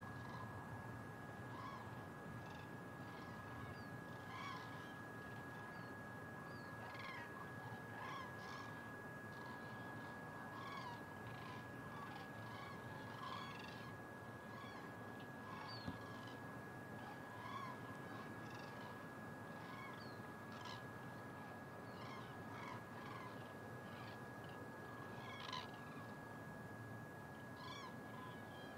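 A flock of common cranes calling: many short, overlapping trumpeting calls, some nearer and some farther off, repeating irregularly throughout.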